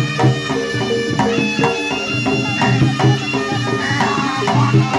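Live jaranan music: a slompret (Javanese shawm) melody over gamelan percussion (kendang drums, kenong, saron and gong) keeping a steady beat.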